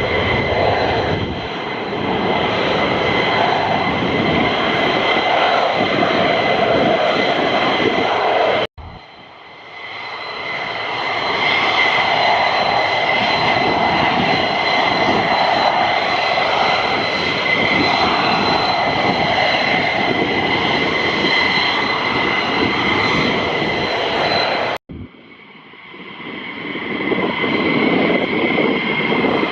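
F-15 fighter jets' twin turbofan engines running loud, a heavy roar with a steady high whine over it. The sound cuts off abruptly twice, about 9 and 25 seconds in, and each time builds up again over a couple of seconds.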